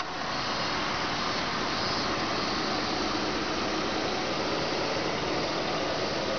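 A parked 2003 Toyota Prius running, heard as a steady mechanical hum under an even hiss.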